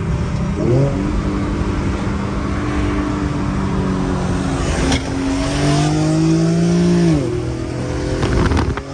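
Infiniti G37 sedan's 3.7-litre VQ V6 with a muffler delete, heard from inside the cabin, pulling hard under acceleration. The exhaust note climbs in pitch, breaks briefly at a gear change about five seconds in, climbs again, then drops as the throttle is lifted about seven seconds in.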